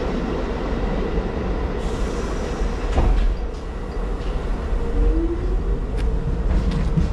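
A train running past close by: a steady heavy rumble with a faint steady whine, a short rising whine about four seconds in, and sharp clicks at about three seconds and again near six.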